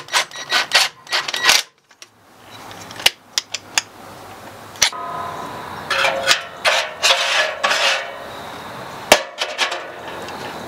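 Metal parts clanking and clicking in quick knocks, then a scraping rattle with some brief metallic ringing, and one sharp clank near the end.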